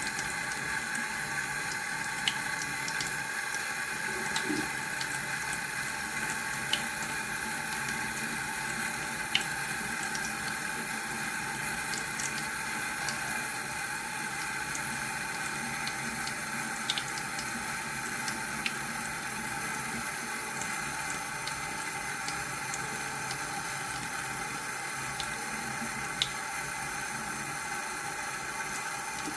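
Water running steadily from a tap, with a few short sharp ticks scattered through.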